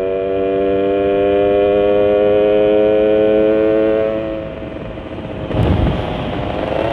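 Two-stroke engine of a modified Yamaha Sigma underbone, fitted with a 30 mm UMA carburettor, running at steady revs under way with its carb setting not yet dialed in. It holds an even drone that fades about four seconds in, then a rough low rumble rises near the end.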